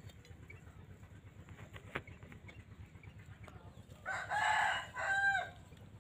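A rooster crowing once, about four seconds in. The call comes in a few linked parts, and the last note bends downward.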